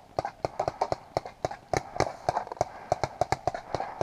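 Rapid paintball marker fire: a fast, slightly uneven string of sharp pops, about six a second.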